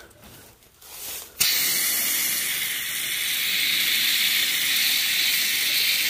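Garden hose jet spraying water onto a dirt-impacted microchannel condenser coil of a rooftop-style HVAC unit. It starts abruptly about a second and a half in, then runs as a steady, high hiss of spray.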